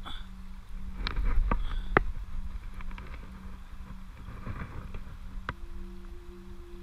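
Shallow stream water sloshing and splashing around a hand that holds a brown trout in the current to revive it before release, with a few sharp knocks and a low rumble about a second in.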